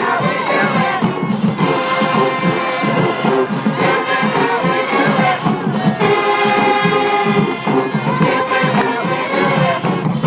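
Marching band playing, brass over drums and low horns with a steady, driving beat.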